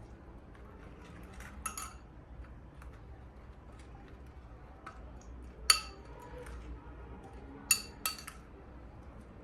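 Metal kitchen utensils clinking against dishes or cookware: a handful of sharp, ringing strikes in two close pairs and one loudest single strike, over low background noise.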